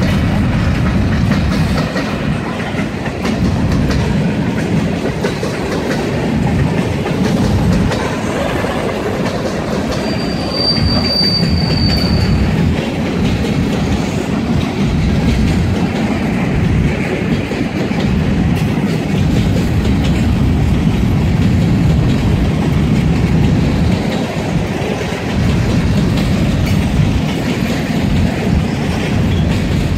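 Covered hopper cars of a freight train rolling past, steel wheels clacking over the rail joints over a steady heavy rumble. About ten seconds in, a high, steady squeal from the train rings out for about two seconds.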